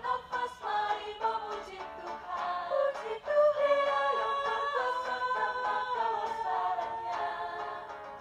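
Mixed vocal group singing a gospel song in close harmony, several voices holding long notes together, over light acoustic guitar strumming.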